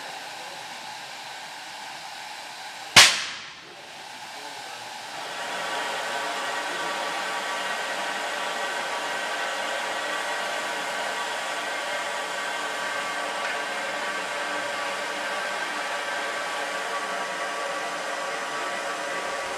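Standing IV K narrow-gauge steam locomotive hissing steadily, with a single sharp bang about three seconds in. About two seconds after the bang the hiss grows louder and fuller, then holds steady.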